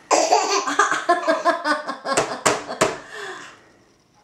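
A baby laughing in quick high-pitched bursts, then three sharp slaps of her hands on a plastic high-chair tray a little past the middle.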